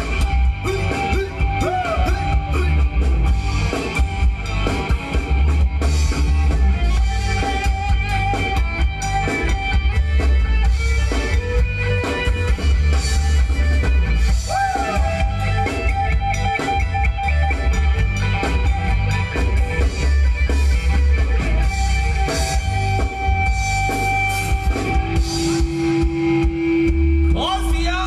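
Live Thai ramwong band music played loudly through a PA, with a heavy bass beat and drum kit driving it.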